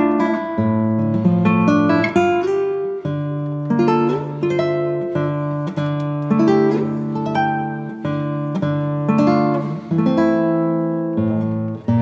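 Background music: an instrumental of quickly picked plucked-string notes over a slower-moving bass line.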